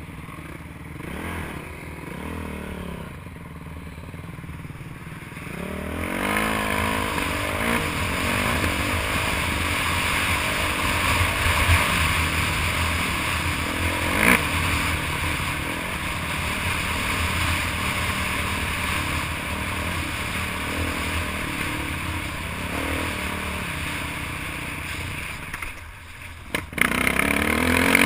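Off-road motorcycle engine running under load on a climb, with rattling and rushing noise from riding over rough ground. It gets louder about six seconds in, dips briefly near the end, then picks up again.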